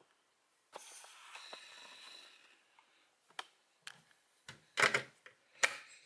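Hard plastic toy clicks and clacks as a DX Amazing Hercules Progrise Key is handled and slotted into a DX Progrise Key Connector. About two seconds of scraping noise comes first, then several sharp clicks, with the two loudest clacks near the end.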